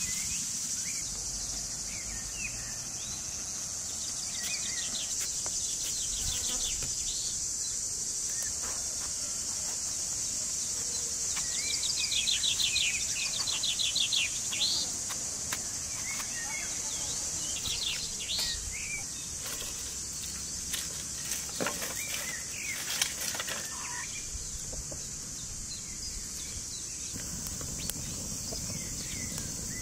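A steady high-pitched drone of insects, with birds chirping and trilling in short bursts over it.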